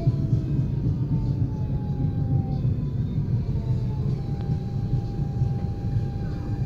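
Inside a DSB Litra SA S-tog electric commuter train: a steady low rumble of the running train, with the whine of its Siemens GTO-VVVF traction inverter. The whine's tones glide downward as the train slows alongside a station platform, and a steadier tone sets in about four seconds in.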